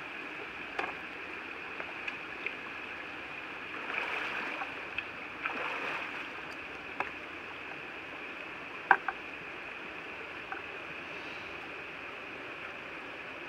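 Boots wading and splashing through a shallow stream over the steady rush of flowing water. A few sharp clicks and knocks are heard, the loudest about nine seconds in.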